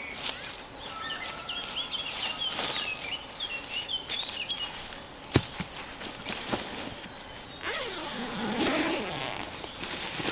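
Outdoor ambience: quick bird-like chirping for a few seconds, scattered sharp taps with one louder click midway, and a burst of rustling and handling noise near the end.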